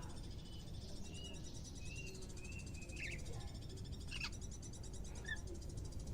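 Greater green leafbird (cucak ijo) giving a string of short whistled notes, then two sharp downward-sweeping calls and a last short note, the bird starting to call actively. A steady fast insect trill runs underneath.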